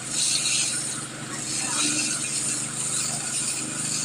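Well-drilling machine's engine running steadily, with a hiss over it that swells and fades every second or so.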